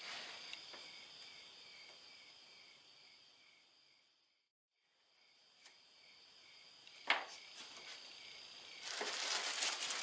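Faint high-pitched chirring with a regular pulse that fades away. About seven seconds in comes a single knock, and near the end the crinkling rustle of a plastic bag being handled.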